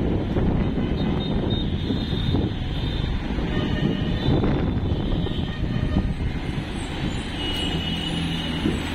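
Double-decker bus under way, its engine and road noise making a steady, dense low rumble.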